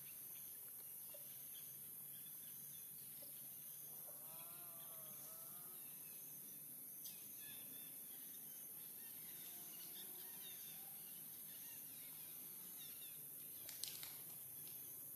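Quiet outdoor ambience with a steady high hiss. About four seconds in, an animal gives a short run of rising-and-falling calls, fainter calls follow later, and there is a single sharp click near the end.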